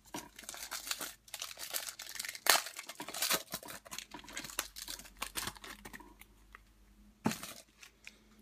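Foil wrapper of a Panini Unparalleled football card pack crinkling and tearing as it is pulled from the box and ripped open. Dense crackling goes on for about seven seconds, with one sharp snap near the end.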